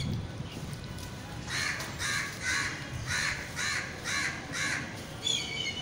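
Crow cawing in a steady series of about seven short calls, roughly two a second, followed near the end by higher bird chirps.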